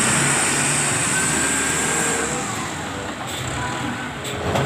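Steady motor-vehicle noise: an engine running evenly under a hissy, high-pitched wash of noise.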